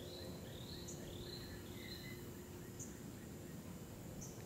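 Tropical rainforest insects droning steadily and faintly, with short high chirps repeating about every second and a half and a few rising whistled calls over the top.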